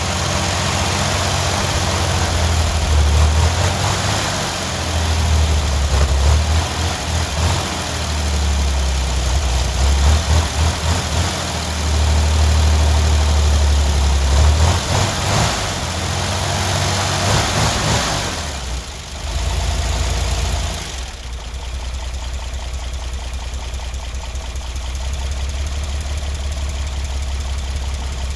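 Old sawmill power-unit engine running just after a cold start, its beat uneven and surging for the first two-thirds. About two-thirds of the way in it dips, then settles into a steadier, even idle.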